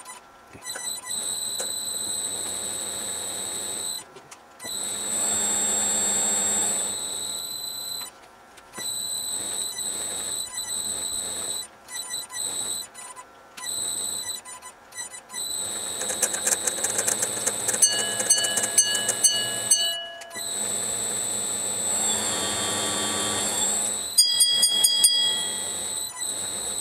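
Smart & Brown 1024 lathe cutting a fusee groove in brass with a narrow form tool: a high-pitched whine that stops and starts many times with short breaks between passes. A quick run of ticks comes about two-thirds of the way in.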